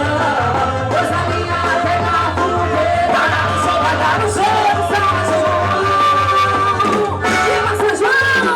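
Loud quadrilha junina song: music with a sung melody over a steady bass.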